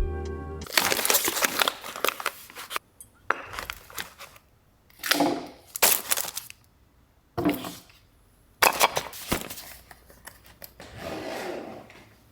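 Background music stops under a second in, then a run of handling noises: rustling, scraping and knocking in about six separate bursts of a second or so each, with short quiet gaps between.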